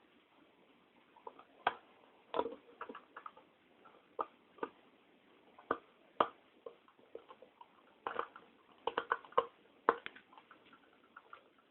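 Irregular small clicks and taps, with a few sharper knocks, from a screwdriver and small metal parts being handled while reassembling a hard drive.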